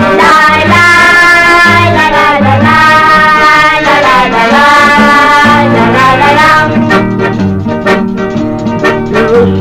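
Instrumental break in a Calabrian folk song: a held melody over plucked-string accompaniment and a bass line, thinning out for a couple of seconds near the end.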